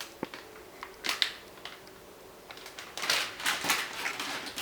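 Plastic-wrapped candy packets being handled: scattered crinkles and light clicks, busier in the second half.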